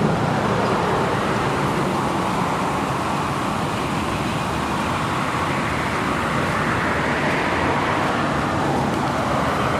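Steady road traffic noise, a continuous hum of passing cars with no single event standing out.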